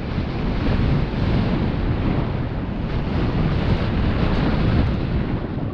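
Wind rushing over the microphone as a mountain bike rides fast down a dirt trail, a steady loud rush with the most weight low down.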